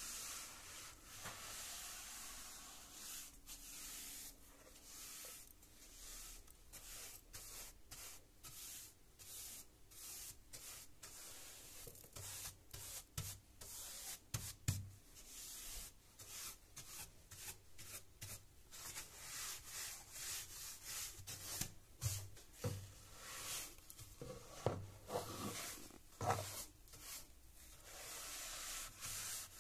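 Paint brush bristles sweeping dust and debris across a wooden stair tread in quick, repeated strokes, with a few louder taps in the second half.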